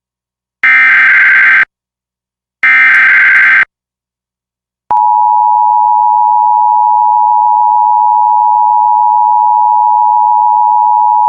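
Emergency Alert System SAME header: two one-second bursts of screechy digital data, a pause of about a second, then the steady two-tone EAS attention signal (853 and 960 Hz) begins about five seconds in and holds.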